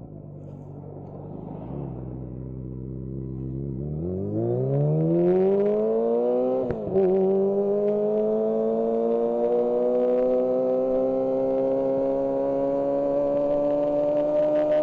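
Kawasaki ZX-25R's 250 cc inline-four engine under acceleration: running steadily at low revs, then revving up hard about four seconds in. About seven seconds in, the pitch drops abruptly at an upshift, then climbs slowly and steadily in the next gear.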